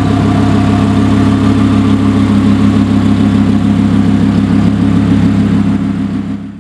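Sheepey Race twin-turbocharged Lamborghini Huracán's V10 engine idling steadily at an even, unchanging pitch; the sound fades out at the very end.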